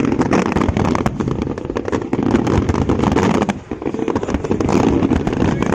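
Fireworks display going off: dense, overlapping bangs and crackles, with a brief lull about three and a half seconds in.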